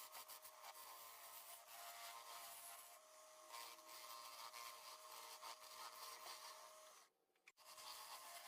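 Faint small power tool running steadily on wood, a constant whine over a hiss; it stops about seven seconds in and starts again half a second later.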